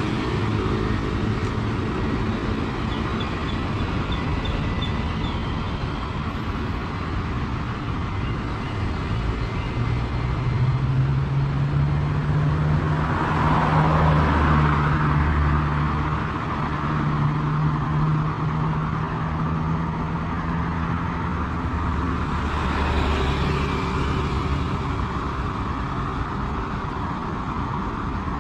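Road traffic: cars and motorbikes passing on a city street, with a steady low rumble. Engine hum swells as a car passes close about halfway through, and another vehicle passes near the end.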